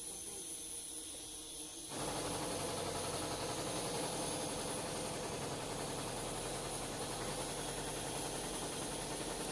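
Steady machine noise, a hiss over a hum, that cuts in abruptly about two seconds in; before that only quieter background hiss.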